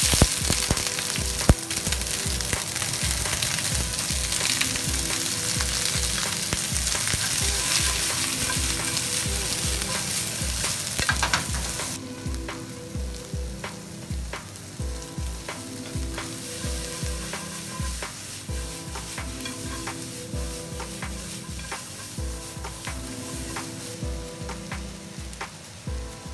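Sliced onions sizzling in a hot cast-iron skillet. The sizzle is loud at first and drops to a quieter, steady sizzle with small clicks about halfway through.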